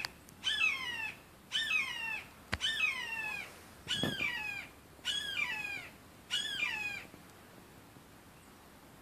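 Hawk calling from a perch: six calls about a second apart, each sliding down in pitch, then falling silent about seven seconds in.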